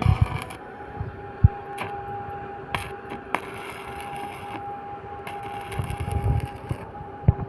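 Electric arc welding: stretches of crackling, sizzling arc noise that start and stop several times over a steady two-tone machine hum, with a few sharp metal knocks, the loudest about a second and a half in and near the end.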